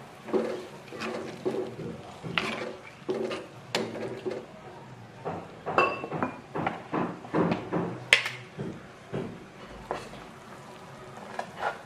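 Metal ladle stirring chunks of potato and carrot in a nonstick pan of broth, knocking and scraping against the pan in irregular strokes. Two sharper metallic clinks come about halfway through and a little later.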